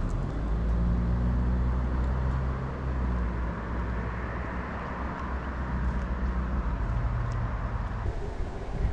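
A motor vehicle driving past close by: a low engine hum with tyre and road noise that swells through the middle and falls away near the end.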